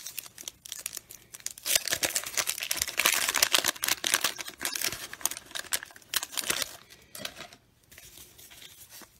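Wax-paper wrapper of a 1990 Bowman baseball card pack being torn open and crinkled by hand, a dense crackle lasting about five seconds, then fading to faint rustling as the cards come out.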